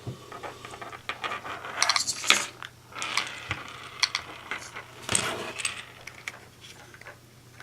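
Small metal parts of an RC18B2's driveline clicking, scraping and rattling as they are handled, with clusters of clicks about 2, 3 and 5 seconds in: the dogbone being refitted with a cut-down spring.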